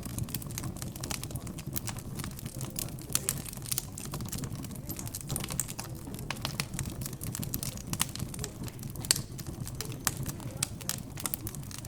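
Wood fire crackling in a fireplace: irregular sharp pops and snaps, several a second, over a low, steady murmur of background chatter.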